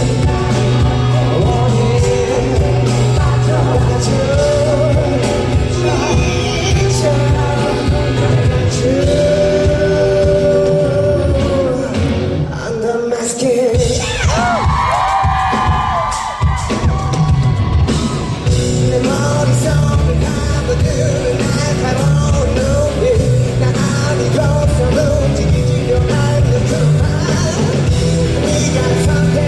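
Live pop-rock band playing at full volume with a heavy bass line and drums, a singing voice and yelling over it. Near the middle the band drops out for about a second, then a high sliding vocal line comes in before the band picks up again.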